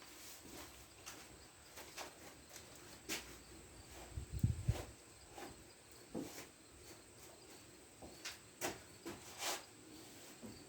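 Irregular light scrapes and clicks of a hand tool working on metal, taking the burr off the threads of a lathe bed's mounting-screw holes, with one duller low thump about four and a half seconds in.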